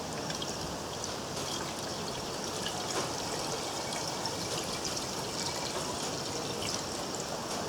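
Water trickling steadily in the water-cooling hopper of a Briggs & Stratton Model Y hopper-cooled engine, as it is filled with cooling water.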